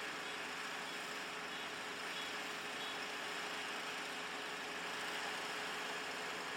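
Kubota five-row combine harvester running steadily, a constant machine drone with a steady engine tone.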